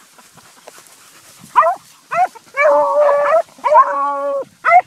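Dogs on a rabbit's trail baying: two short falling barks, then two long drawn-out bays, then another short bark near the end.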